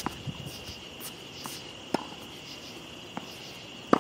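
Steady high chirring of a night insect chorus, likely crickets. A few sharp tennis-ball impacts are heard, one about two seconds in and a louder one near the end.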